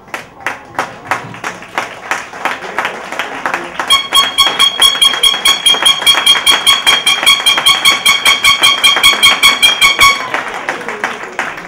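Spectators clapping in a steady rhythm that speeds up, joined about four seconds in by a horn blaring in short blasts in time with the claps for about six seconds, after which the clapping carries on alone.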